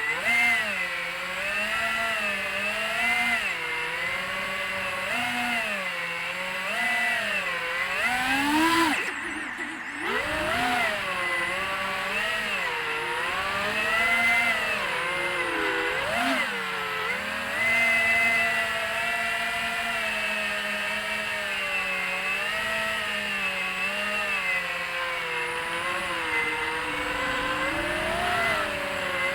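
FPV racing quadcopter's brushless motors whining, the pitch swinging up and down continuously as the throttle is worked through freestyle manoeuvres. About nine seconds in the whine climbs sharply, then briefly cuts out as the throttle is chopped, before spooling back up.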